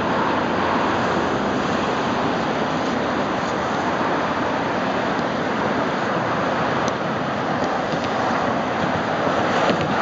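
Ocean surf washing steadily onto the beach, a continuous rushing wash.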